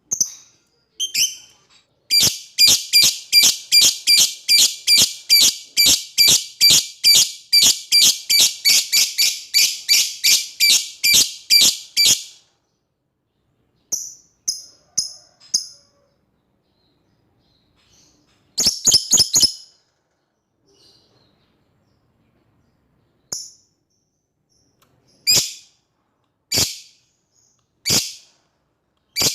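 Lovebird giving its long 'ngekek' chatter: a rapid, unbroken string of sharp, shrill calls, about four a second, for some ten seconds, then shorter bursts of three or four calls and a few single calls near the end. It is a challenge call, aimed at a rival lovebird.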